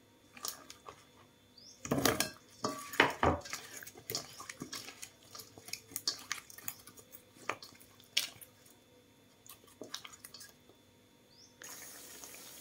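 Hands mixing potato slices in batter in a stainless steel bowl: irregular wet squelches with taps and clinks against the metal. Near the end, oil sizzling steadily as the battered potato slices fry in a pan.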